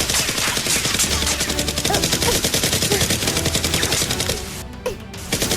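Rapid automatic gunfire: dense volleys of shots that break off for under a second about four and a half seconds in, then start again.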